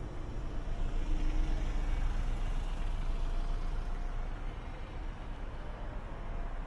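City bus pulling away from the kerb, its engine rumble loudest about one to two seconds in and then fading, with cars and a taxi driving past close by.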